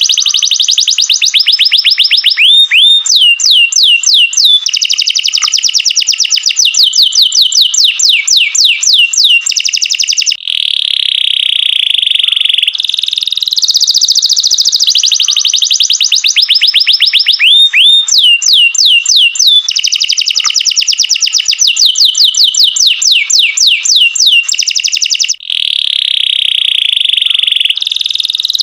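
Canary singing a loud, continuous song of fast trills and sweeping note runs, broken by stretches of a steady rapid roll.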